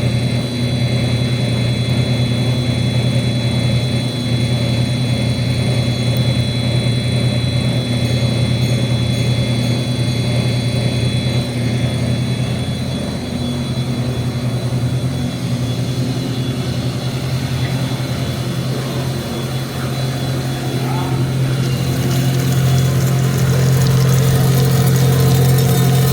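A 55 mm plastic recycling extruder runs steadily on its 20 HP electric motor, giving a continuous machine hum. A high whine over the hum fades out about halfway through, and the machine grows louder near the end.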